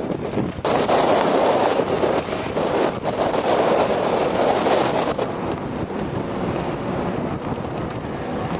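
Wind buffeting the microphone over rushing water. It is strongest for the first five seconds or so, then eases a little.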